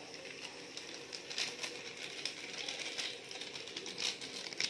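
Irregular clicks, taps and rustling as spice powder is shaken out of a paper masala packet over paneer in a kadhai, with a spatula clicking against the pan. The sharpest clusters come about a second and a half in, around three seconds, and near the end.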